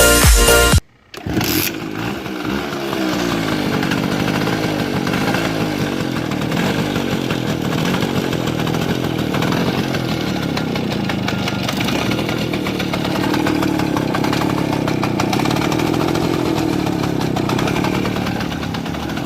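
Music cuts off about a second in. After a brief gap, a Bajaj M80's small two-stroke single-cylinder engine runs, its revs rising and falling.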